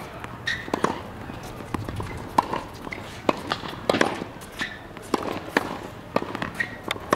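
Tennis balls struck by a racket and bouncing on a hard court: a string of sharp pops about once a second, with shoe squeaks and footsteps in between.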